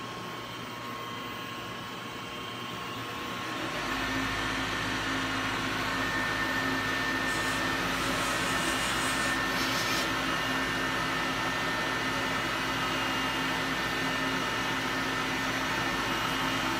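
CNC vertical machining center spindle running, growing louder about four seconds in and then running steadily with a constant whine. A brief hiss comes in about halfway through.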